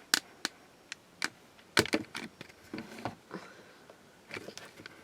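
Irregular clicks and knocks of a hard plastic toy being handled, a few sharper taps about two seconds in.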